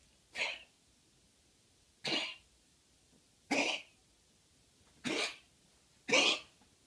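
West Highland white terrier coughing five times, about a second and a half apart, each a short, harsh, gruff cough. It is her chronic cough, which the owner links to bronchitis and is treating with a bronchodilator and atropine.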